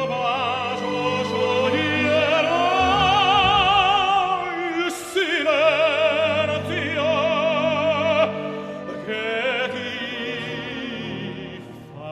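Operatic singing: a voice holding long notes with wide vibrato over an instrumental accompaniment.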